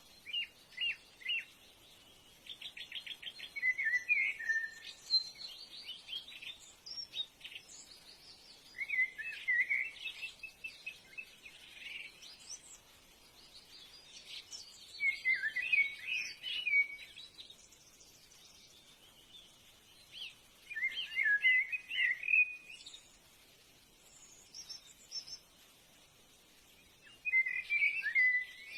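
A songbird singing: short warbled phrases of chirps every five or six seconds, with a fast trill near the start.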